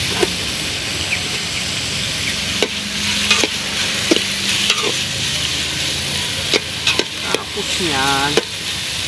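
Onions and garlic sautéing in a large aluminium pot with a steady sizzle, as a metal ladle stirs them and clinks against the pot's side about ten times.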